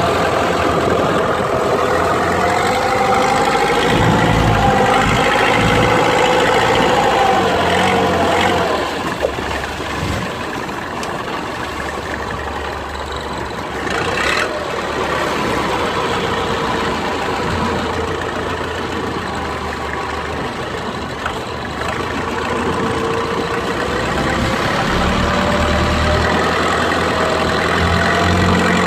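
A small fishing boat's engine running, easing off about eight seconds in and picking up again near the end.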